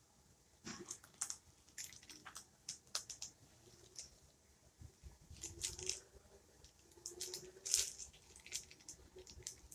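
Irregular crinkling and small clicks of plastic packaging and action-figure parts being handled.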